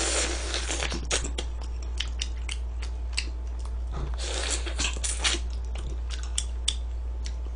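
Close-miked eating: biting and chewing meat off a pork bone, with many short wet clicks and smacks. A longer breathy stretch comes at the start and again about four seconds in.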